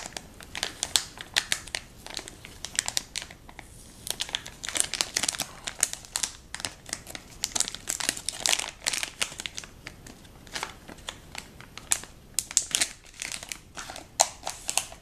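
Metallised anti-static bag crinkling and crackling in irregular bursts as it is worked open by hand and the Raspberry Pi circuit board is slid out of it. The crackling eases briefly about two-thirds of the way through.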